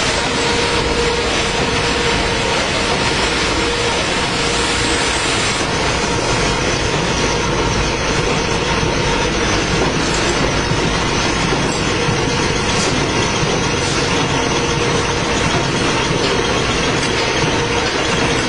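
Toilet-roll and kitchen-towel converting line running: a loud, steady machine clatter with a constant hum.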